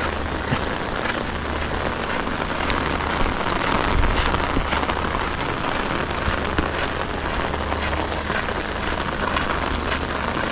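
Steady rain falling on a flooded gravel road and standing water: an even hiss with many single drops ticking close by.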